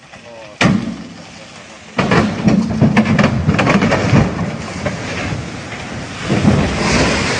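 Loaded dump truck rolling over into a roadside ditch. There is a sharp crack under a second in, then from about two seconds a loud, long crashing rumble as the body goes over and the load pours out, fading slowly with another surge near the end.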